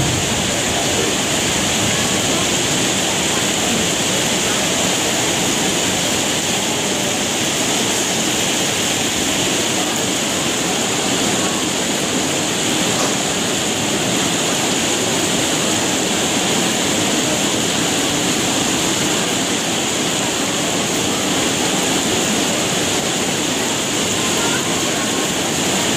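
Heavy rain pouring down steadily in a downpour, a dense even hiss with no letup.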